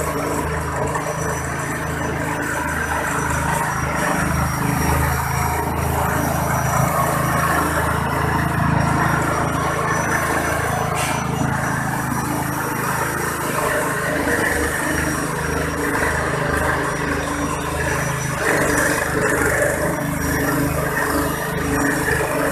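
Small single-cylinder petrol engine running steadily, driving an organic-waste chopper as vegetable waste is fed in and shredded.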